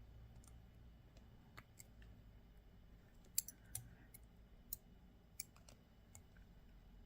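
Faint, scattered clicks of small jewellery pliers on wire as a wire loop is being wrapped, with a handful of sharper clicks around the middle.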